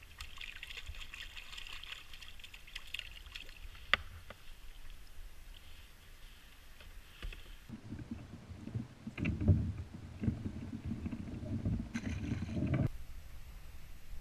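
A hooked puppy drum (young red drum) splashing at the surface beside a kayak, with sharp clicks. Then low bumps and rustling, the loudest part, as the landed fish is handled in the kayak.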